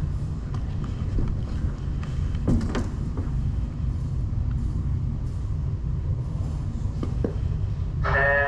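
Steady low rumble of a body-worn camera moving through an indoor airsoft arena, with scattered sharp clicks and knocks from airsoft gunfire and BB hits, a small cluster about two and a half seconds in. A voice starts near the end.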